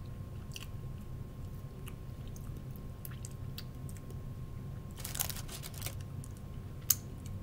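A person chewing and biting into crispy fried food: soft wet chewing clicks, with a burst of loud crunching about five seconds in and a sharp click near the end.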